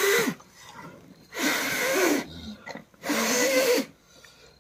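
A man blowing hard into a newborn premature calf's mouth and nostrils as rescue breathing: three long, breathy puffs about a second and a half apart.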